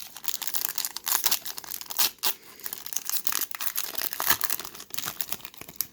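Trading card pack wrapper being torn open and crinkled by hand: an irregular run of crackling and rustling.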